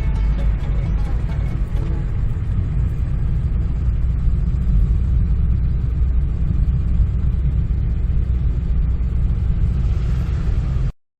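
Steady low rumble of a vehicle on the move, road and engine noise, which cuts off suddenly near the end.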